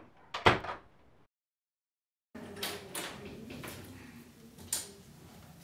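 Bedroom door being handled. A sharp click comes about half a second in, then a second of dead silence. After that come several light knocks and clicks of the door opening, over a faint room hiss.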